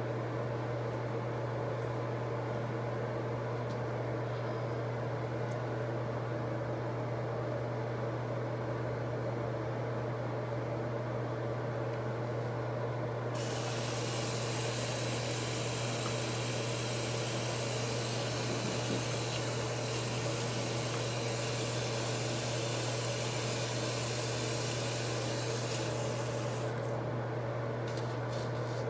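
Steady low mechanical hum with a hiss over it. Near the end, quick rubbing sounds of hands working product through hair.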